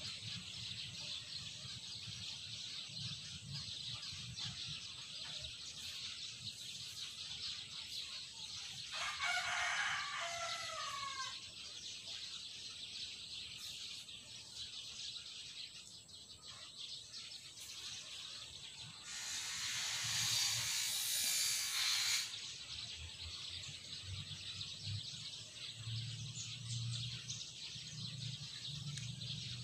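A rooster crowing once, a drawn-out call of about two seconds that dips and rises in pitch, over a steady high hiss. About two-thirds of the way through, a louder rushing noise lasts about three seconds.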